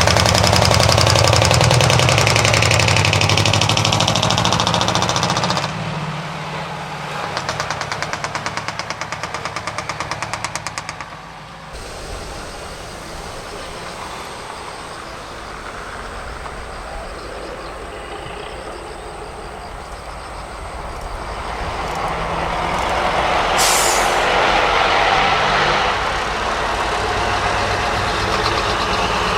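Big diesel art trucks driving past, their engines running loud, with a rapid even exhaust pulse from about six to eleven seconds in. A short hiss of air brakes at about 24 seconds.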